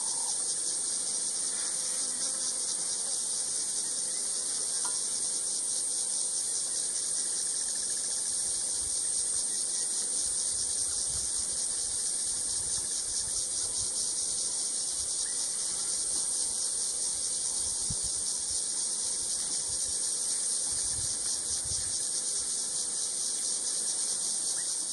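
A steady, high-pitched drone of calling insects with a fast pulsing texture, unbroken throughout.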